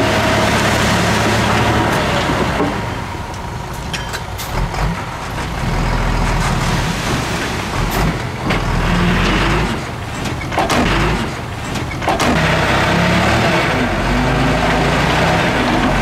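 Heavy diesel earthmoving machinery running under load. It eases off for a couple of seconds about three seconds in and again around ten to twelve seconds, with a few sharp knocks.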